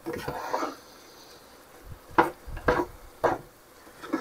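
Kitchen clatter: a short scraping stir in a pot of simmering sauce, then three sharp knocks of cookware about half a second apart.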